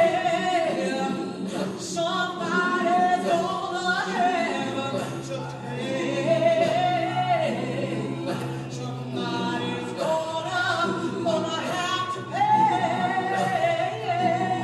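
Vocal music: singing voices holding long notes with a wavering vibrato. A low steady note comes in underneath about four and a half seconds in.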